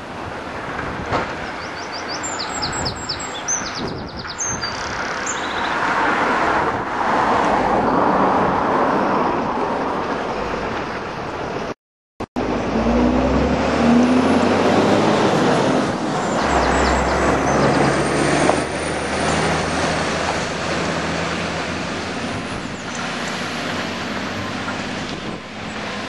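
Diesel earthmoving plant at work: a tracked excavator and an articulated dump truck running together, the truck's low engine note coming up after a short break in the sound about halfway through. A few short bird chirps come in about two to four seconds in.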